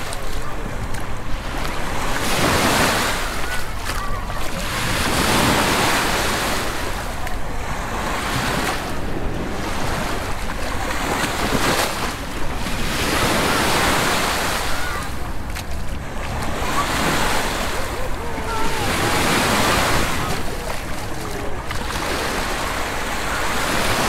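Small Mediterranean waves breaking and washing up a sand shore, the surf swelling and fading every two to three seconds. Voices of people chatter faintly in the background, over a low rumble of wind on the microphone.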